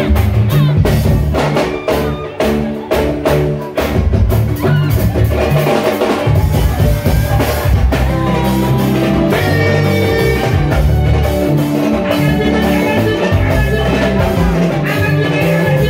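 Live mbalax band playing an upbeat dance number: dense, rapid drum hits for the first few seconds, then a steady beat under electric guitar and bass guitar.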